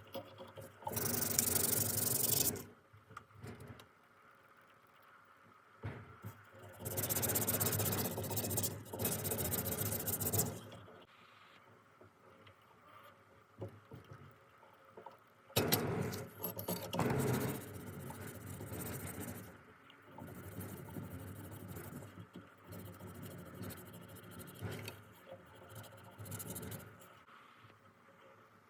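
Abrasive scraping and rubbing by hand, in several bursts of a few seconds each with short pauses between.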